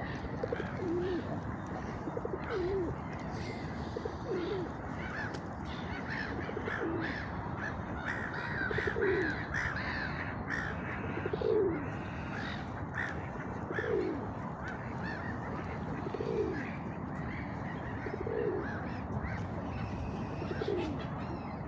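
Birds calling: a low, falling call repeated about every two seconds, with quicker, higher chirps from other birds, thickest about halfway through, over a steady background hiss.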